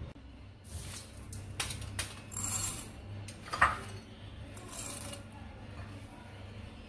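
Roasted peanuts being handled and dropped into a glass bowl: scattered small clicks and rattles, the sharpest about three and a half seconds in.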